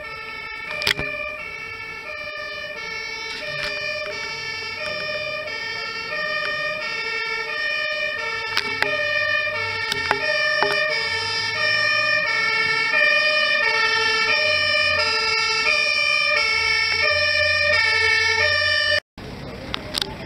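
German two-tone sirens (Martinshorn) of several fire engines and an ambulance, their high and low notes alternating out of step with one another and growing louder as the convoy approaches. The sirens cut off suddenly near the end.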